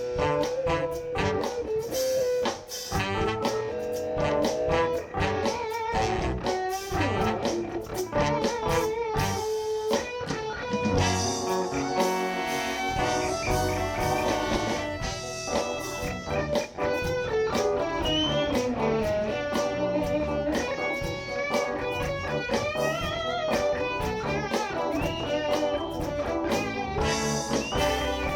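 Live band playing an instrumental break, an electric guitar carrying a bending melodic lead over bass and drums.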